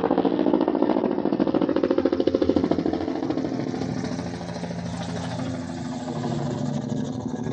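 Helicopter rotor thudding in a rapid, even pulse, loudest for the first three seconds and then fading as it moves off.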